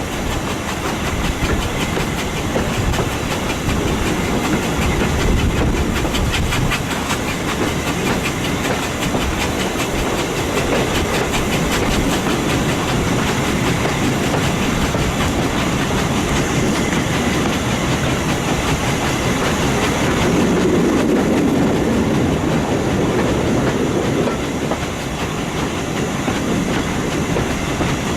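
Heritage steam-hauled train running slowly, its carriage wheels clicking steadily over the rail joints with a constant rumble.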